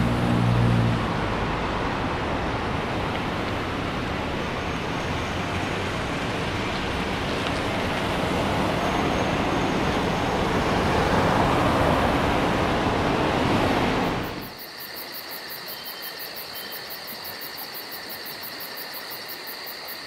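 Road traffic on a city street, a steady rush of car noise picked up by a compact camera's built-in microphone, swelling slightly about eleven seconds in. About fourteen seconds in it cuts off abruptly to a much quieter background with a faint high steady whine.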